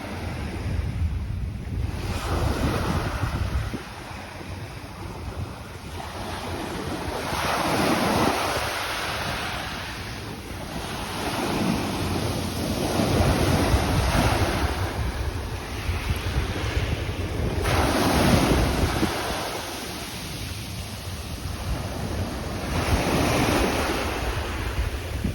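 Waves breaking and washing up a sand beach, swelling and fading about every five seconds, with wind rumbling on the microphone.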